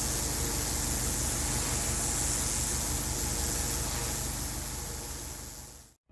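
Pressure washer running: the engine's steady hum under the loud hiss of the high-pressure water jet on imprinted concrete. It cuts off suddenly near the end.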